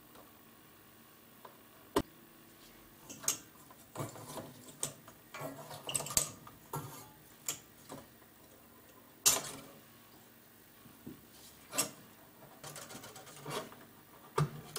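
Valves and their metal valve shields being pulled by hand from the sockets of a Marshall JCM 900 valve amplifier chassis: scattered clicks, clinks and short rattles of metal and glass. Two sharp clicks stand out, one about two seconds in and one near the middle.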